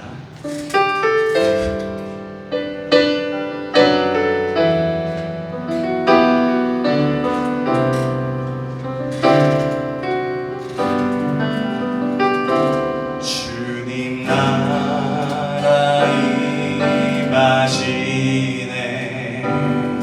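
Worship band playing an instrumental introduction: keyboard chords over bass, with drums and cymbals joining about two thirds of the way through.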